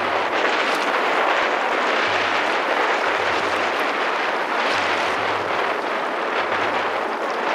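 Strong wind buffeting the camera microphone on a sea kayak: a steady rush with low rumbles coming and going every second or so.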